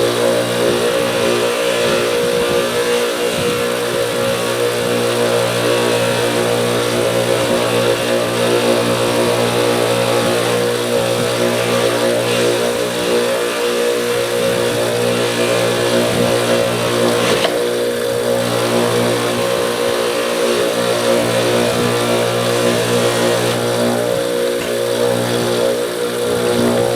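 Electric bench grinder motor running steadily at constant speed, with a wheel working the steel of the pliers.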